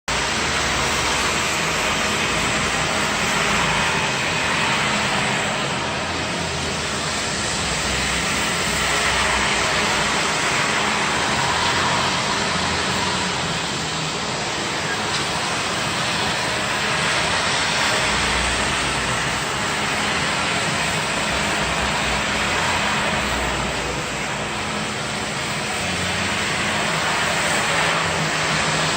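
Small wet floor-cleaning vehicle running steadily: an even rushing noise over a low steady hum from its motor, swelling and easing slightly as it works.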